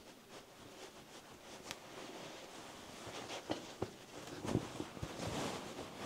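Faint handling noises: a few light knocks and clicks of small objects being picked up and set down, over a low hiss.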